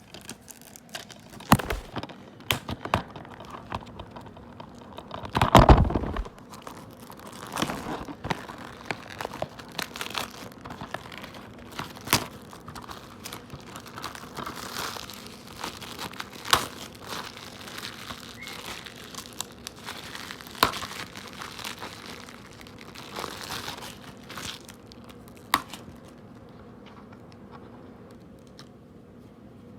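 Plastic shrink-wrap being torn and peeled off a DVD case, crinkling and crackling with irregular clicks, loudest about six seconds in, then dying down near the end.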